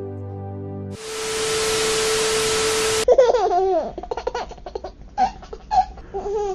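A held music chord ends about a second in, followed by about two seconds of static-like hiss with a steady tone that cuts off suddenly. A baby's giggling and babbling then follows in short bursts.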